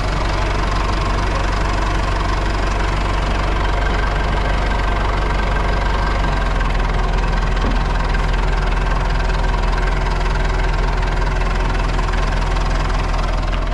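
Backhoe engine idling steadily.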